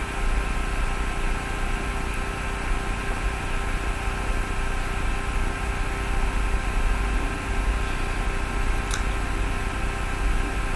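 Steady background hiss with a low hum and faint steady whine tones, the recording's constant noise, with a short click near the end.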